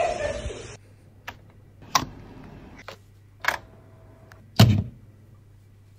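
Sharp clicks and knocks, about five over four seconds, the last and loudest with a dull thump, as a cable plug is pushed and worked into a black device's socket. A low steady hum runs underneath.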